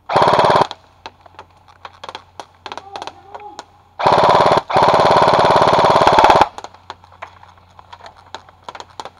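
Airsoft rifle firing on full auto: a short burst, then two longer bursts about four seconds in, each a fast, even rattle of shots. Scattered single sharp clicks come between the bursts.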